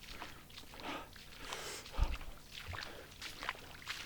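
A person wading barefoot through a stream: irregular splashing and sloshing of water around the legs, with a low thump about two seconds in.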